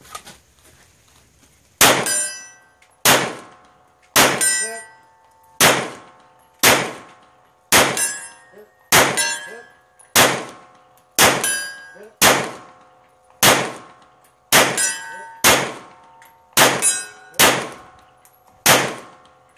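Handgun fired at a steady pace, about sixteen shots roughly a second apart, starting about two seconds in. Each shot is followed by a ringing clang of struck steel targets.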